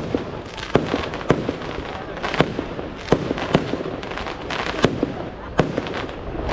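Aerial fireworks shells bursting: about eight sharp bangs at irregular intervals over a continuous crackle.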